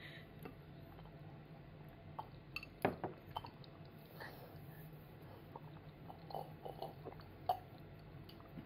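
A toddler quietly sipping and swallowing soup from a small two-handled cup, with a few soft clicks and knocks of the cup, the sharpest about three seconds in and another near seven and a half seconds.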